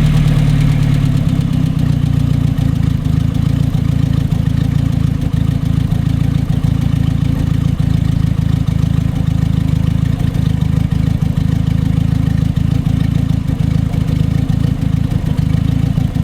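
1982 Datsun wagon's carbureted four-cylinder engine idling just after starting, a little stronger for the first couple of seconds and then steady. The owner hears a light tick and suspects a minor vacuum leak and valves that may need adjusting again.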